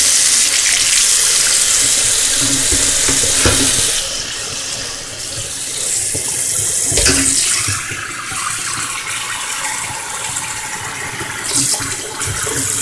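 Kitchen tap running full into a stainless steel sink, a steady splashing hiss, with a couple of knocks against the sink about three and a half and seven seconds in.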